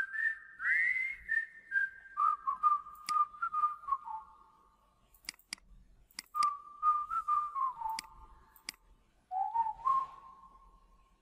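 A whistled tune in several short phrases of sliding notes, played as background music. Between the phrases come about six sharp mouse clicks.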